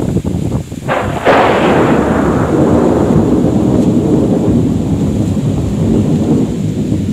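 A thunderclap: a sharp crack about a second in, then a long rumble that slowly dies away.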